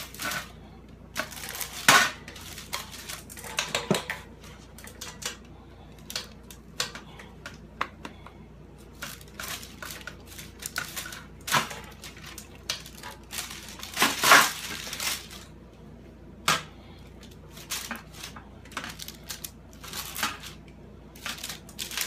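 Irregular clattering of a metal tray and rustling of its paper lining as gloved hands knead and fold a lump of hot, softened plastic from melted grocery bags, with a sharper knock now and then, loudest about two seconds in and about fourteen seconds in.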